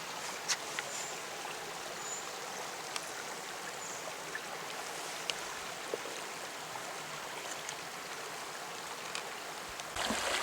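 Shallow stream babbling over stones, a steady rush of running water that grows louder just before the end.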